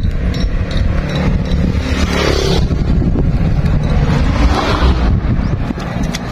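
Vehicles passing on a roadside road: one swells and fades about two seconds in, another about four and a half seconds in, over a steady low rumble.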